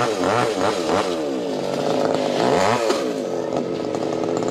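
Chainsaw engine running and being revved up and down, its pitch rising and falling several times.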